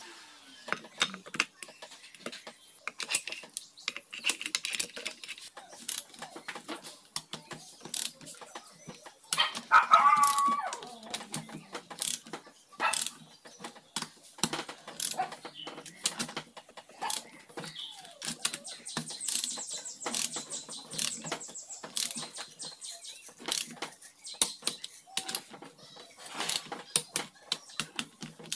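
Irregular metallic clicks, taps and clinks of hand tools and parts being fitted to a motorcycle engine's cylinder head and valve gear. About ten seconds in, a loud pitched cry rises over them for about a second.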